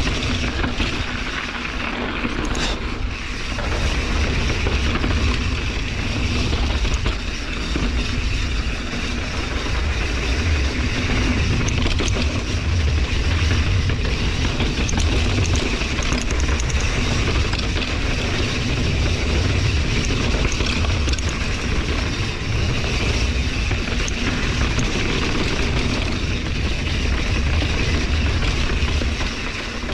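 Santa Cruz Hightower LT mountain bike rolling fast down a dry dirt singletrack: tyres running over dirt and small rocks under a steady, heavy rumble of wind on the action-camera microphone.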